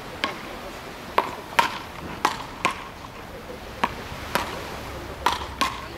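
Wooden beach-racket paddles hitting a ball back and forth in a quick rally: about nine sharp wooden knocks in six seconds, unevenly spaced, some coming in quick pairs.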